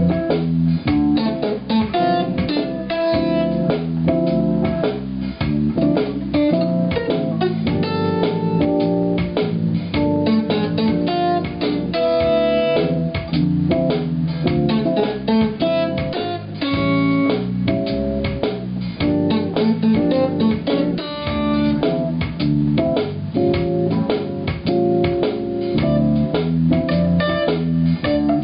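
Guitar playing a blues, quick plucked notes over low bass notes.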